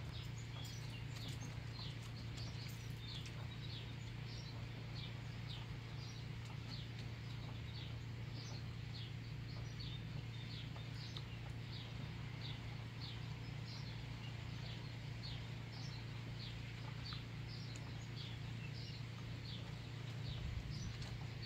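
A bird repeating a short, high, falling call note over and over, about twice a second, over a steady low hum.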